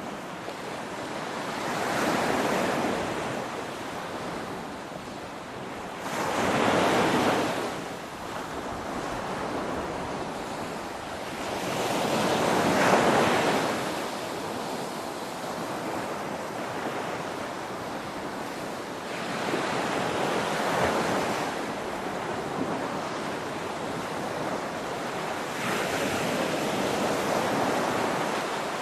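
Ocean waves crashing in a steady wash of surf, with about five waves surging louder and fading a few seconds apart; the loudest comes about halfway through.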